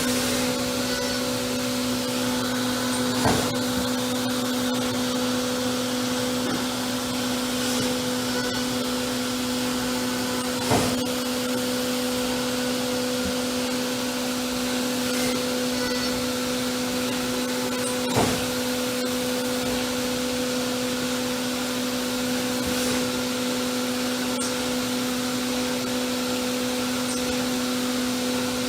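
Hurco VMX30Di CNC vertical machining center running under power: a steady mechanical hum with a constant tone and hiss. Short knocks come three times, about seven and a half seconds apart.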